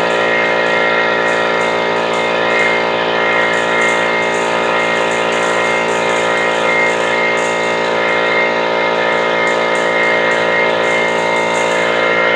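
Harbor Freight 21-gallon oil-lubricated air compressor running loud and steady with an even hum, filling its tank on its very first run.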